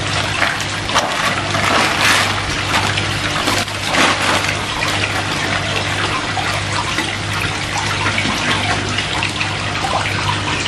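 Water splashing and sloshing as a koi is handled in shallow water on a measuring mat, with a continuous rush of running water and a steady low hum underneath.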